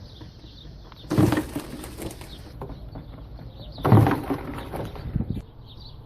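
Birds chirping faintly in the background, broken by two loud rustling bursts about one and four seconds in, with a few clicks after the second.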